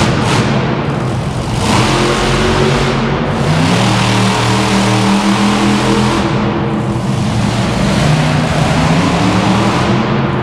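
Monster truck engine revving as the truck drives across the dirt arena floor, rising to a higher, louder pitch about three and a half seconds in and easing back a few seconds later.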